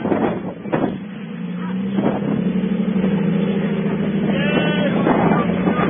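Rock-crawling Jeep's engine pulling steadily under load as it climbs a near-vertical rock ledge. Its drone settles in about a second and a half in and rises slightly. Voices and wind noise come at the start.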